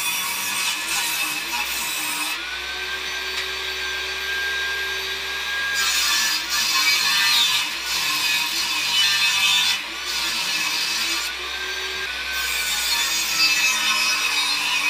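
Benchtop table saw ripping softwood boards along the fence. The dense cutting noise gives way twice to stretches where the blade spins free with a steady motor whine.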